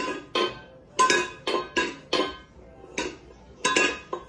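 Stainless steel pet food bowl clanking against a hard floor as a cat knocks it about. The knocks come about ten times at irregular intervals, each ringing briefly.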